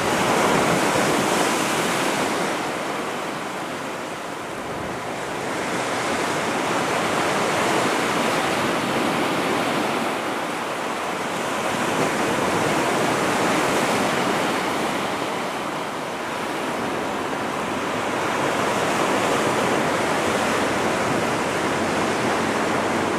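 Ocean surf breaking on a sandy beach: a continuous rushing wash of waves that swells and eases every five or six seconds.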